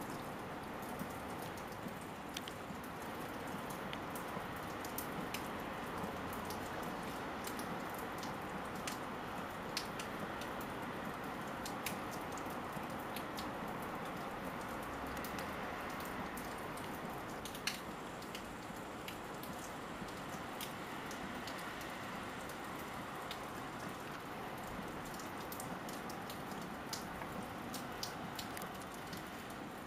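Steady rain falling, with individual drops ticking sharply here and there through it.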